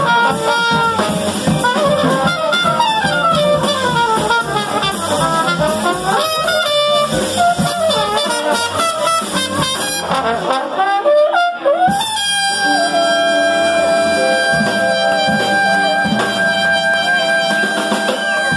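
Live small-group jazz: a trumpet and a trombone play moving lines over acoustic bass and drums. About twelve seconds in, the horns slide up and hold a long final chord to close the tune.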